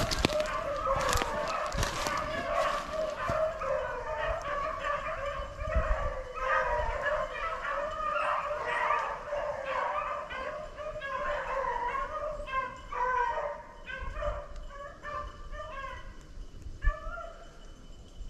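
A pack of beagles baying while running a swamp rabbit's trail: many short, overlapping cries, thicker in the first half.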